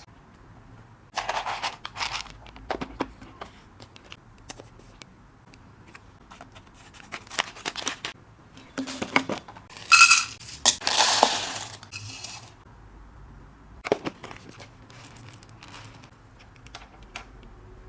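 Snack packaging rustling and crinkling in short bursts, with sharp clicks and light clinks of items being handled and set down, the loudest burst about ten seconds in.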